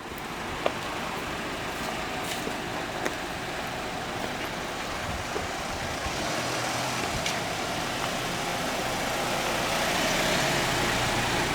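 Steady car or road-traffic noise, slowly growing louder, with a few faint clicks.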